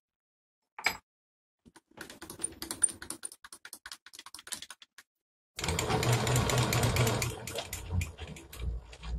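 Milling machine with a small drill in its chuck: first a run of rapid, irregular ticking, then from about halfway the spindle motor running with a steady low hum for a few seconds, which cuts off abruptly at the end.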